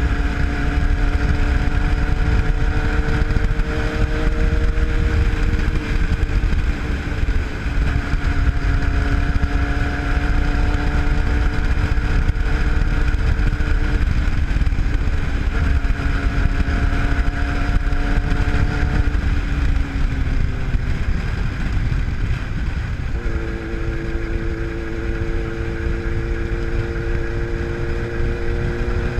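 Sport motorcycle engine running while riding, over a steady rush of wind on the microphone. The engine note climbs slowly and changes pitch several times as speed changes.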